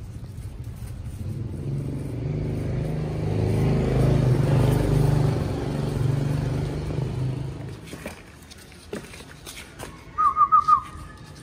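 A motor vehicle passing by, its engine hum swelling and then fading over several seconds. Near the end, four short, high, rising squeaks follow in quick succession.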